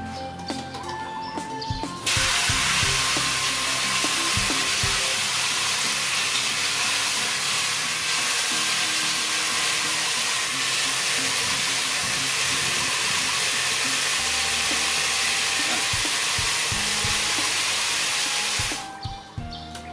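Fine jet of water spraying from a PVC pipe tap into a large metal basin: a steady hiss that starts about two seconds in as the valve opens and cuts off shortly before the end.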